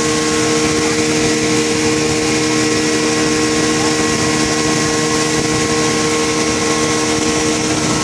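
A boat's engine running at a steady speed with a constant hum, over the rush and splash of water churned up along the hull.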